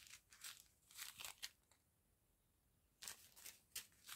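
Faint crinkling of small plastic zip-lock bags of round diamond-painting drills being handled and shuffled, in short spells with a pause of about a second and a half in the middle.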